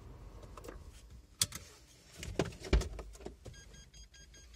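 Car interior: a low, steady rumble of the moving car, with a few sharp clicks and thumps in the middle, the loudest about two-thirds of the way through. Near the end, a rapid series of short electronic beeps starts, about six a second.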